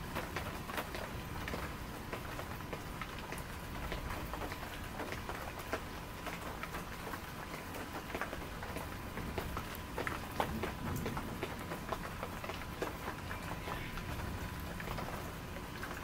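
Rain falling steadily: an even hiss with a dense scatter of sharp ticks from drops striking close by.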